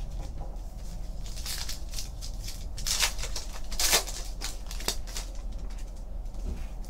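Foil wrapper of a Panini Contenders football card pack being torn open and crinkled, with several short crinkles and rips.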